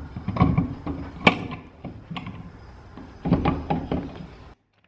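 Knocks and scuffs of hands handling a mounted Hoosier drag slick, with a card slid along the gap between tyre and wheel well; a sharp click a little over a second in. The sound cuts off suddenly near the end.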